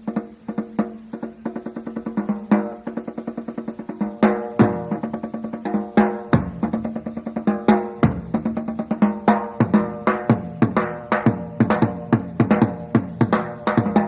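Live rock drum kit solo: rapid strokes across snare and tuned toms, with deep floor-tom or bass-drum hits, getting denser and louder about four seconds in.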